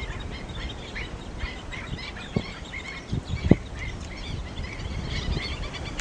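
Birds calling: many short chirps repeating several times a second over a low rumble. Two dull thumps land about two and a half and three and a half seconds in; the second is the loudest sound.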